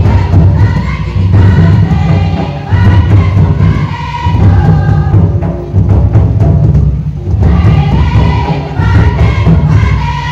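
Tribal Karam dance music: a group of voices singing a song in repeated phrases over loud, continuous beating of hand-played barrel drums.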